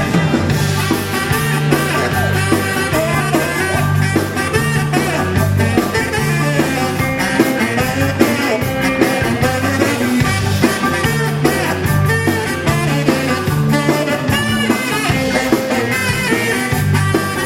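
Live rock and roll band playing an instrumental passage with guitar, a pulsing bass line and a steady beat, straight after the count-in.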